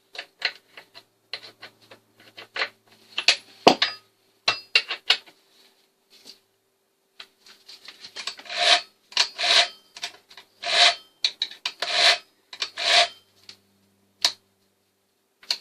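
Chainsaw chain being pulled round the guide bar by hand to check its tension, the metal links rasping along the bar. A few light clicks and scrapes come first, then after a short pause a run of about nine rasping strokes, roughly two a second.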